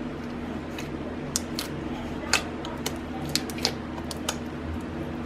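Clear pigment-powder slime being pressed and poked by fingers in a plastic tub, giving a scattered string of sharp little clicks and pops from air bubbles in the slime, about seven in a few seconds, the loudest about halfway through. A steady low hum runs underneath.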